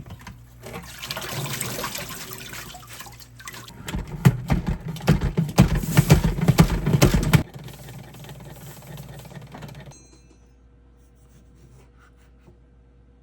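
Water running and splashing, loudest between about four and seven seconds in, then cutting off abruptly; a fainter hiss continues until about ten seconds in.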